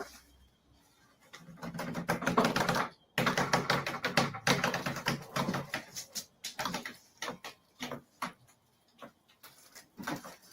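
Rapid, irregular clicking and knocking as a wooden closet shelf is wiggled and strained against its fittings, working it loose. The clicking is densest for the first few seconds, then thins out to scattered clicks.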